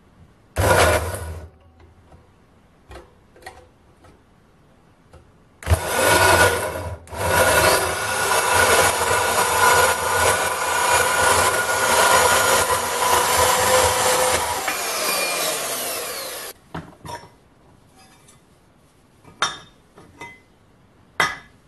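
VEVOR 1100-watt variable-speed portable bandsaw cutting thin-walled steel tube at low speed. There is a brief burst of the saw about half a second in. From about six seconds the saw runs steadily through the cut for about ten seconds, then its pitch falls as the blade coasts down. Metal knocks and clinks from handling the cut tube come near the end.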